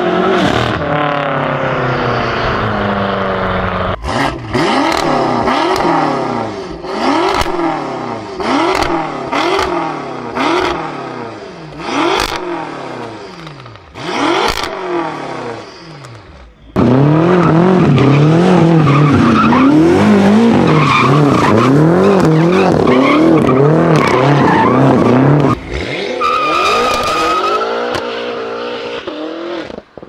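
BMW F10 M5's twin-turbo 4.4-litre V8 exhaust: accelerating through the gears, then revved again and again, each rev rising sharply and falling away, with sharp cracks between some revs. Near the end a hard launch with tyres squealing.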